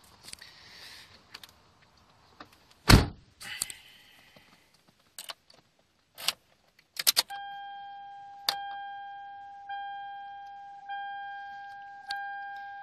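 Car keys jangling and clicking, with a heavy thump about three seconds in. Then, with the ignition switched on, a 2003 Toyota Celica's dashboard warning chime dings steadily, about once every 1.2 seconds.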